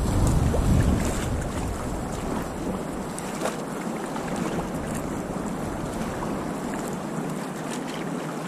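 Wind buffeting the microphone over the wash of sea water around a kayak. The low wind rumble drops away after about two seconds, leaving the steadier water and wind hiss.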